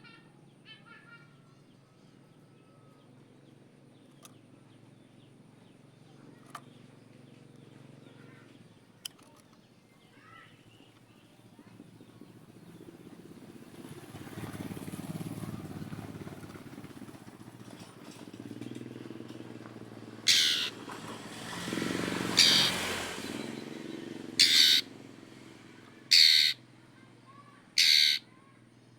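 Oriental magpie-robin giving loud, harsh screeching calls, one every second and a half to two seconds from about two-thirds of the way in: the rasping challenge call given to a rival. Faint chirps come before, and a rushing noise swells and fades around the middle.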